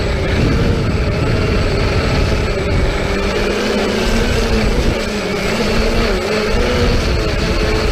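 Multirotor drone's electric motors and propellers whining, several pitches wavering slightly as the motors adjust speed, over a steady low wind rumble on the microphone.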